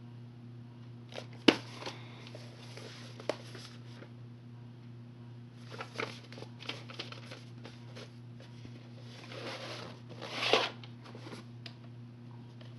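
VHS tapes being handled: sharp clicks and knocks of plastic cassettes and cardboard sleeves being set down and picked up, with rustling in between. The loudest click comes about a second and a half in, and a longer rustle with a knock comes near the end. A steady low hum runs underneath.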